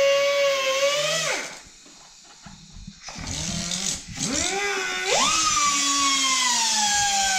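Handheld cut-off grinder cutting a slit into the old wheel bearing race stuck on the hub: a high whine that winds down about a second and a half in and pauses. It spins back up between about three and five seconds in, then runs on under load with its pitch slowly sinking.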